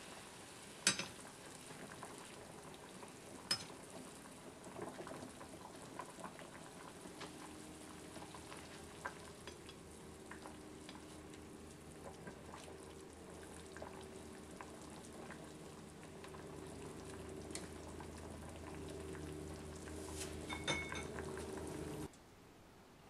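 Pot of pork and leeks simmering in braising liquid on a gas stove: steady bubbling, with scattered sharp clicks and taps of chopsticks against the steel pot.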